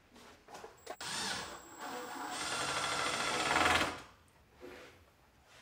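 Cordless drill driving a screw into a plywood cabinet box. After a couple of short starts it runs steadily for about three seconds, getting louder as the screw goes in, and stops a little before the end.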